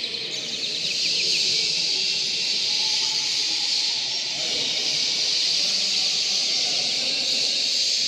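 Many caged show birds, canaries among them, singing and chirping at once: a dense, high chorus full of fast trills, over a low murmur of voices in the hall.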